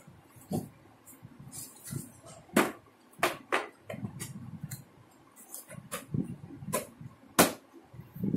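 Hard plastic toy kitchen parts being handled and fitted together: irregular sharp clicks and knocks of plastic on plastic, the loudest near the end, with quieter handling noise in between.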